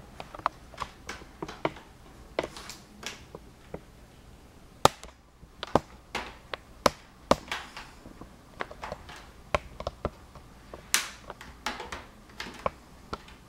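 Small flathead screwdriver prying at a laptop's snap-in plastic screen bezel: many irregular sharp clicks and ticks of the tip and the plastic edge, with a few louder snaps as the clips work loose.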